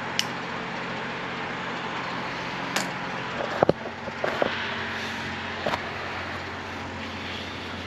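A steady rushing noise with a low hum runs throughout. A lighter clicks right at the start, there are a few more sharp clicks, and handling knocks come as the camera is picked up and moved around the middle.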